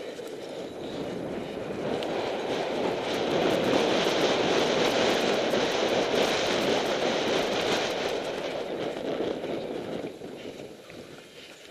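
A cyclocross bike ridden fast over bumpy grass, its tyres running with a steady rolling rumble and light rattling ticks. The noise swells about two seconds in and dies down near the end as the bike slows.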